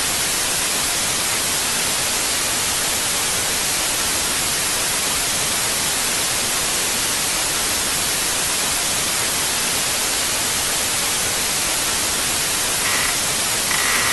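Steady, loud static hiss of the kind heard from a worn VHS security tape, unchanging throughout. Near the end, two short high-pitched tones break through it.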